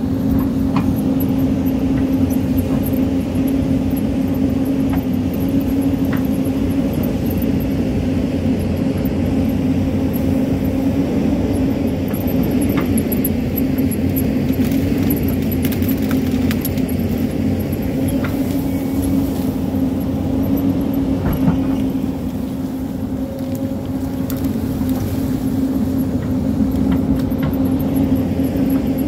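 Hyundai hydraulic excavator's diesel engine running steadily under digging load, a constant hum that eases briefly about three-quarters of the way through. Scattered knocks and clatter of rock and soil as the bucket cuts into the hillside.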